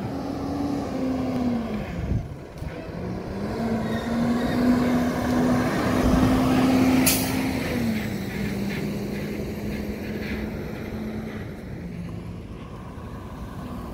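Semi truck's diesel engine running as the truck drives past, loudest around the middle, its steady hum dropping in pitch a couple of times. A brief sharp hiss comes about seven seconds in.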